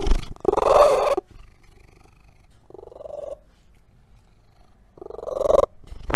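A domestic cat making three short, rumbling vocal calls: the first about half a second in is the longest and loudest, a quieter, shorter one follows about three seconds in, and a third comes near the end.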